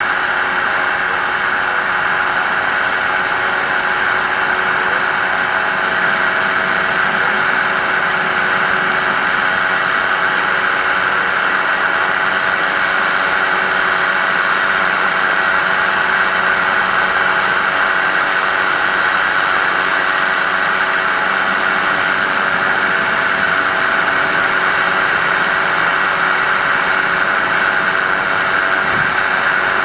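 Microlight aircraft engine running steadily in flight, a constant drone of several even tones over a loud rush of airflow.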